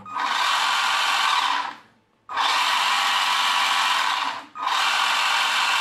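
Electric drive motor and gearbox of a four-wheel-drive toy RC car running through an electronic speed controller, in three runs of about two seconds each with short breaks between them.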